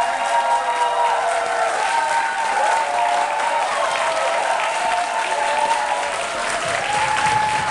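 Choir and audience applauding steadily, with several high voices holding long cheers over the clapping.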